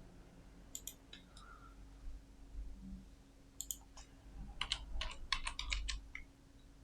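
Faint computer keyboard and mouse clicks: a few scattered clicks, then a quick run of keystrokes from about four and a half seconds in, over a faint steady low hum.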